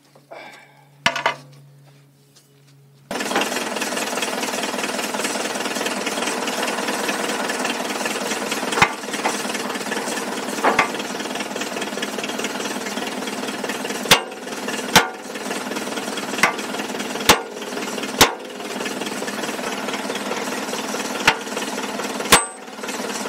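Diesel engine of a Case 580 backhoe loader running steadily, coming in abruptly about three seconds in. Sharp metal clanks sound every second or two over it, with a couple of knocks before the engine comes in.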